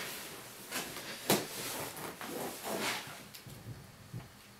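Handling noise as a hard-shell guitar case is lifted out of a cardboard shipping box: brushing and rustling with a few light knocks, the loudest about a second in.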